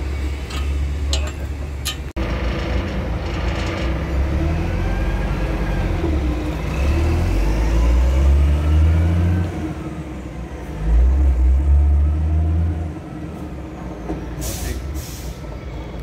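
Concrete mixer truck's diesel engine running heavily, its engine speed rising and falling so that the sound swells twice. Near the end come two short hisses of air, typical of a truck's air brakes.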